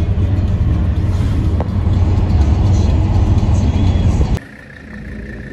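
Steady low drone of a 1985 Mercedes 300D's five-cylinder turbodiesel and its road noise heard inside the cabin at highway speed, with music underneath. It cuts off abruptly about four seconds in, leaving a much quieter sound.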